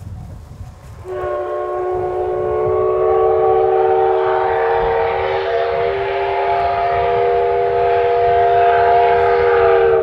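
JNR Class D51 steam locomotive's whistle blowing one long, steady blast that starts about a second in and cuts off abruptly near the end, over a low rumble.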